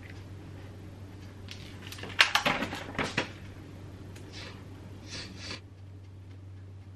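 Stiff plastic peel-and-stick tile sheet crackling and clicking as it is handled and fingers pick at its backing, which is hard to get off. There is a cluster of sharp crinkles about two to three seconds in, then fainter rustles.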